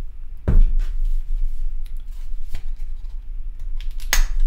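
Hands handling the glasses' charging case and small packaging pieces on a desk: several sharp clicks and knocks, the loudest about half a second in and near the end, with light rustling between them, over a steady low hum.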